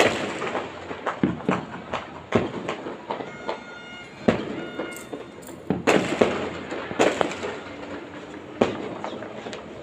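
Fireworks going off across the city: an irregular run of sharp bangs and pops at varying distances, the loudest right at the start and a cluster of several more in the middle.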